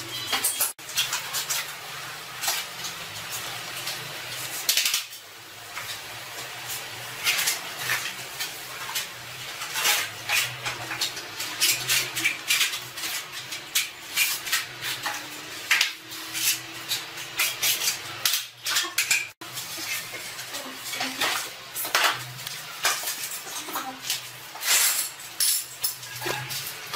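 Hand tiling work: a notched trowel scraping and combing tile adhesive across the floor, mixed with sharp clicks and clinks of tiles and plastic leveling clips being set.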